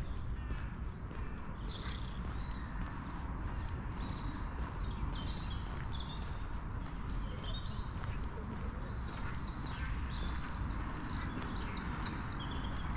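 Several small birds singing and chirping at once in quick overlapping phrases, with a steady low rumble underneath.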